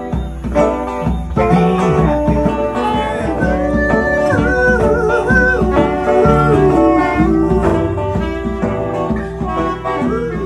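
Live band music from a small house band of keyboard, saxophone and guitars, playing continuously with a steady beat.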